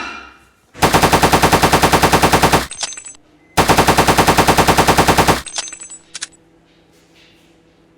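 Prank sound app playing a synthetic machine-gun sound effect: two bursts of rapid automatic fire, about two seconds each at roughly ten shots a second, each followed by a few short metallic clicks.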